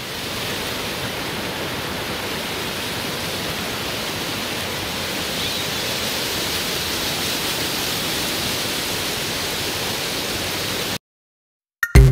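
Rushing whitewater of a river's rapids, a steady rush of churning water that cuts off suddenly about a second before the end.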